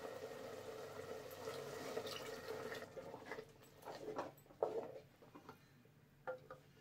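Thin liquid poured from a steel vessel into a clay pot of thick curry, splashing steadily for about three seconds; then a wooden spoon stirs and scrapes against the clay pot, with a few short knocks.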